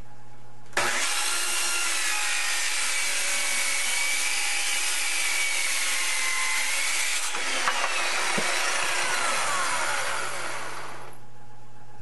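A circular saw starts abruptly about a second in and runs, cutting wood, with a steady high whine over the cutting noise. After about seven seconds the whine falls in pitch as the blade winds down, and the sound fades out near the end.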